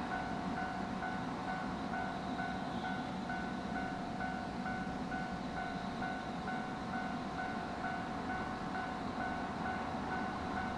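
Japanese railway level-crossing alarm ringing in a steady repeated beat, about two strokes a second, warning that a train is coming. A steady low rumble runs beneath it.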